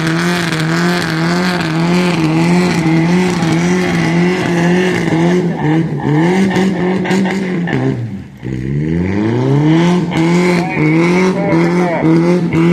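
Demolition derby car engine revving hard and held at high revs, with little traction on slippery mud. It falls away briefly about eight seconds in, then revs back up.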